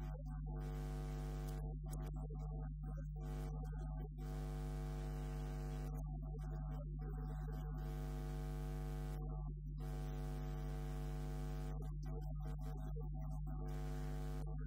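Steady electrical mains hum with a buzzy stack of overtones, unchanging throughout.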